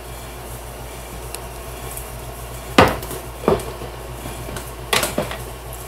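A few sharp clicks and light knocks, starting about three seconds in and again near the end, as small wooden marquetry pieces are handled and set down on a scroll saw's metal table, over a low steady hum.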